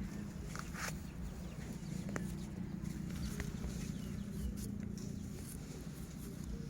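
Chickens clucking faintly over a steady low hum, with scattered small clicks.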